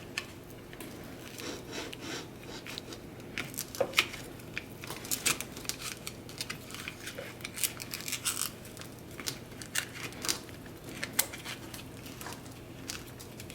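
Plastic pry card working under a glued MacBook Pro laptop battery cell, with small irregular scraping, crackling and clicking as the softened adhesive lets go and the cell lifts.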